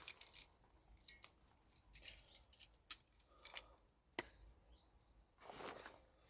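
Faint, scattered clicks and light metallic ticks of small fishing tools, forceps and line clippers, being handled, with a brief soft rustle near the end.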